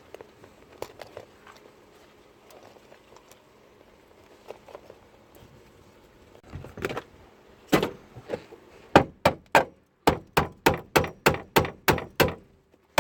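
Newly welded seat bracket on a car floor being knocked and yanked to test it: a couple of separate knocks, then from about two-thirds of the way in, a fast even run of sharp knocks, about three to four a second.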